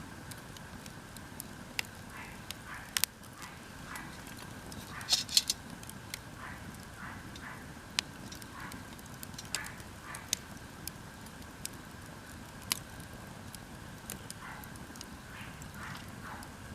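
Wood fire crackling, with irregular sharp pops and a brief loud burst of them about five seconds in.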